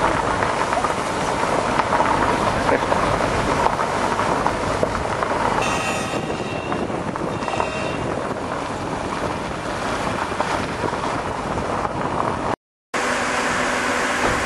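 Old Citroën driving with its side window open: wind and road noise rushing in over the engine, with a brief high whistle around the middle. The sound cuts out for a moment near the end, then a steady hum follows.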